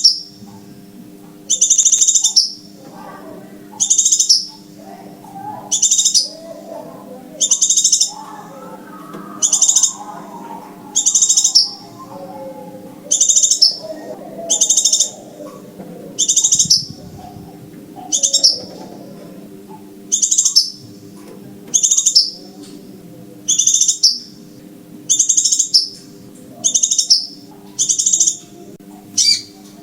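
Crimson sunbird call repeated in a steady series, one short, high, sharp call a little over once a second, played as a looped trapping-lure recording. A faint murmur and low hum sit underneath.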